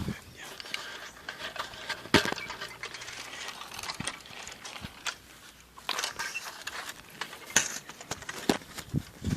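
Footsteps of a person walking on dry ground, irregular crunches and scuffs.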